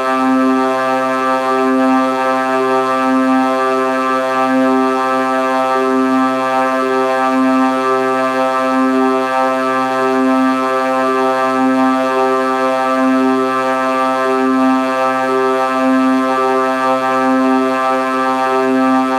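A steady, buzzy synthetic drone held on one low pitch, made by a Vocodex vocoder effect, with a slow throb about every second and a half.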